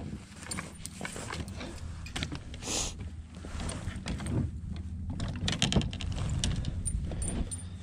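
Gear being handled in a small fishing boat: a run of clicks, knocks and rattles, denser in the second half, with a brief rustle about three seconds in, over a low steady hum.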